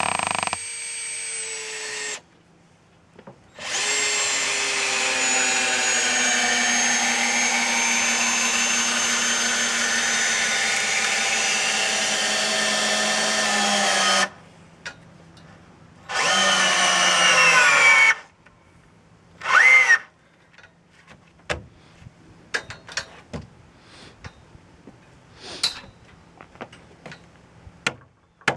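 Power drill driving screws into framing lumber in several runs, the longest about ten seconds, its motor pitch slowly sinking as the screw bites deeper. Scattered knocks and taps follow.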